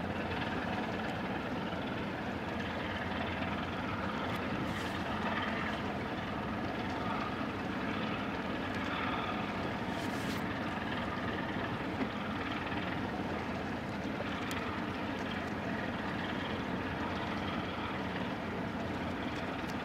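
Steady, unbroken drone of the car ferry Suzuran's engines and machinery, heard across the water as the ship gets under way.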